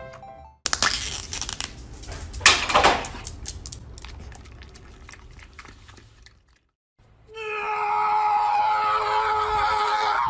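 Dog licking and slurping from a small plastic yogurt cup, with crackly crinkling of the cup and two louder bursts. After a short gap, a loud, steady whine-like sound with several held pitches fills the last three seconds.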